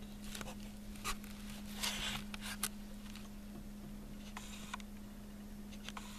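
Soft, scattered rustles and scratches of a cat pawing and biting a furry plush toy on carpet, over a steady low hum.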